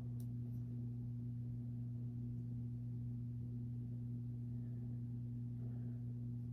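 A steady low hum with one higher tone above it, and one faint click just after the start.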